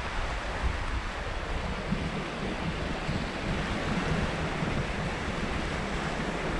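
Baltic Sea surf washing onto a sandy shore in a steady rush, with wind rumbling on the microphone.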